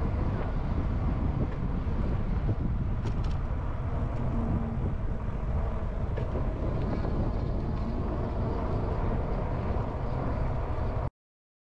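Steady wind rush buffeting the microphone of a GoPro camera on a moving bicycle, heaviest in the low end; it cuts off suddenly near the end.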